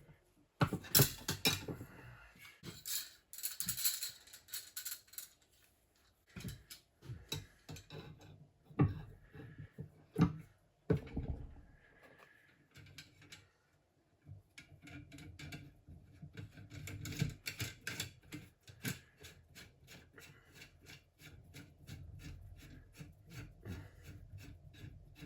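Metal fork parts and hand tools being handled on a workbench: scattered knocks and clicks, then a long run of quick, light clicks in the second half.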